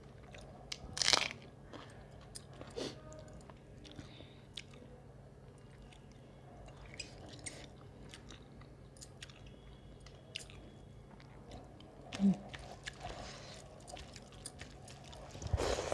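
Close-miked chewing and lip-smacking of a person eating rice and curry by hand, with small wet clicks throughout and a few louder mouth noises, about a second in and near the end.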